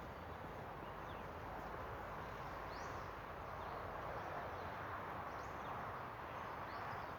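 Outdoor ambience: a steady even hiss with a few faint, short bird chirps.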